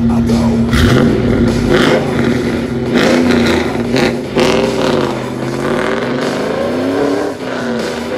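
2000 Chevrolet Camaro SLP SS's 5.7-litre LS V8, breathing through headers and a full aftermarket exhaust, goes from a steady idle to revving about a second in. The pitch then climbs and falls again and again as the car accelerates away.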